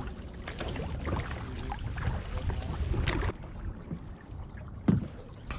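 Double-bladed kayak paddle dipping and pulling through calm lake water from a sit-in kayak, with two louder strokes about three and five seconds in, over a low rumble of wind on the microphone.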